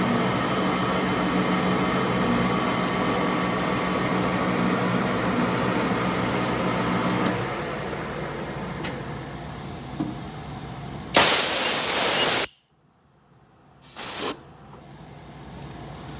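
Metal lathe running with its four-jaw chuck turning while a boring bar cuts inside a bullet mould. About seven seconds in the lathe is switched off and winds down. Near the end come two short, loud hisses, the first about a second long, the second briefer.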